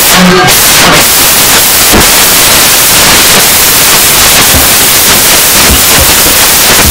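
Loud, steady hiss of noise like radio static, even across the whole range from low to very high.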